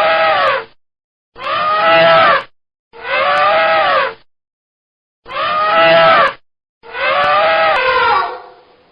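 Elephant trumpeting: a run of five loud trumpet calls, each about a second long and rising then falling in pitch, split by short gaps of silence. The last call trails off with a falling pitch near the end.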